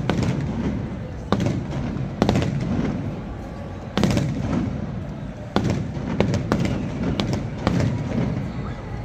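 Aerial fireworks bursting in an irregular series of sharp bangs, about one a second, each trailing off in a low rumble.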